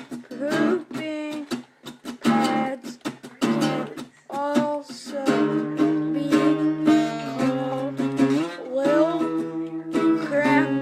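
Strummed acoustic guitar, with a voice singing held, sliding notes over the chords.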